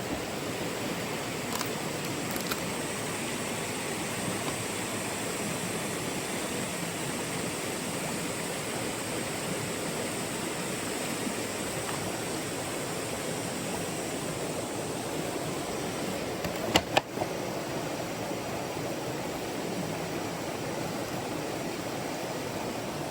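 Steady rush of a small river stream flowing over rocks. Near the end comes a brief pair of sharp knocks.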